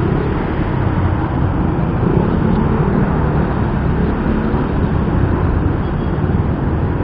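Steady rumble of wind and engine noise from a Yamaha Mio i 125 scooter on the move, picked up by a homemade external mic on an action camera.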